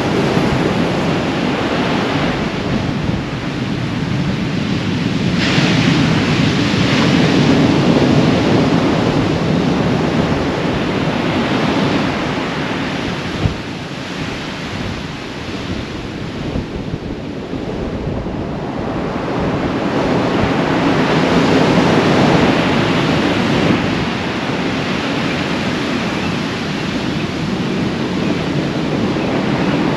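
Heavy surf breaking on the beach, mixed with strong wind buffeting the microphone; the noise swells and eases in slow surges lasting several seconds.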